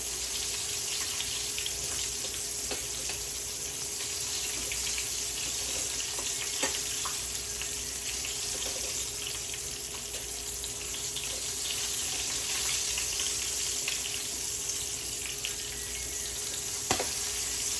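Chicken legs deep-frying in hot oil: a steady sizzle with scattered small pops and crackles, and one sharper knock about a second before the end.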